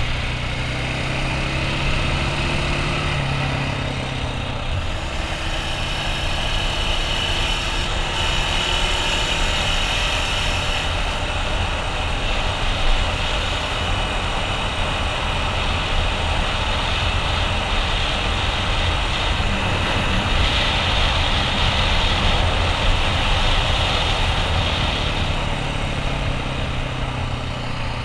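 2015 KTM 690 Enduro R's single-cylinder four-stroke engine running under way as the bike rides along, with wind rushing over the microphone. The engine climbs in pitch over the first few seconds, then holds a steady cruise under the wind noise.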